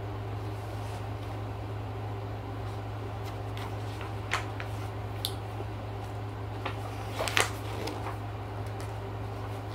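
Room tone: a steady low hum, with a few short clicks and soft rustles in the middle part.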